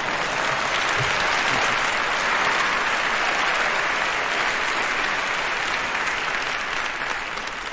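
Live audience applauding, a steady wash of clapping that thins out near the end.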